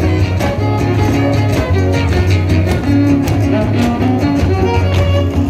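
Son huasteco (huapango) played by a trio huasteco: a violin melody over steadily strummed jarana and huapanguera guitars with a strong bass.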